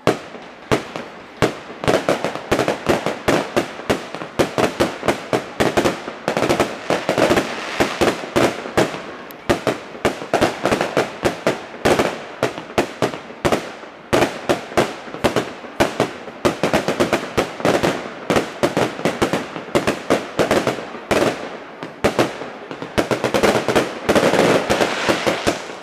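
Fireworks display: aerial shells bursting in a rapid, continuous run of bangs and crackles, several reports a second.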